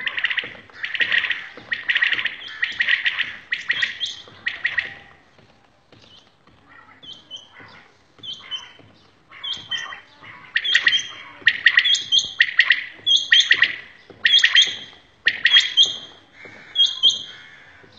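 Caged quails calling, several birds at once: a dense run of quick repeated calls for the first five seconds, a quieter spell, then a steady series of short calls about once a second.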